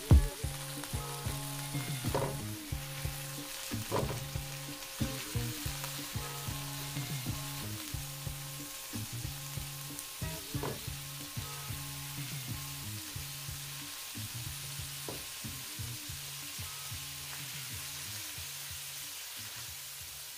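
Shrimp, onion and garlic sizzling in oil in a nonstick wok while a silicone spatula scrapes and taps the pan. The taps come most often and loudest in the first few seconds. Soft background music with long held notes plays underneath.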